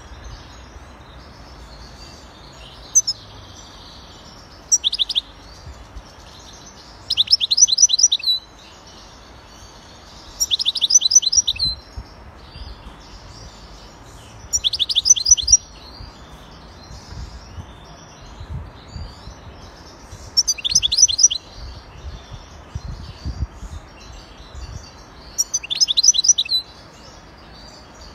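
A wild-caught Algerian European goldfinch sings in a cage. About six loud, short phrases of rapid rattling, trilled notes come every few seconds, with softer twittering between them.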